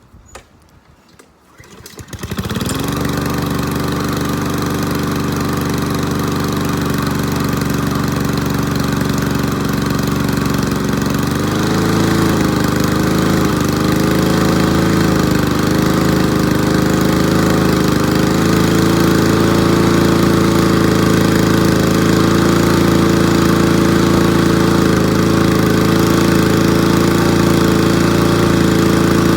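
Troy-Bilt lawnmower's Honda engine cold-starting in below-freezing weather, catching about two seconds in and then running steadily. About eleven seconds in its speed rises a little, then holds with a slight waver.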